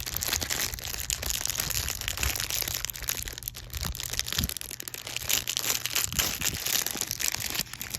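Plastic wrap and foil candy packaging crinkling and crackling as it is handled.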